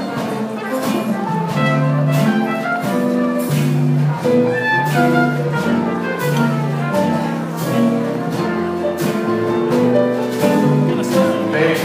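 Instrumental break in a sung ballad: instruments playing held chords and a melody over a steady beat, with no singing.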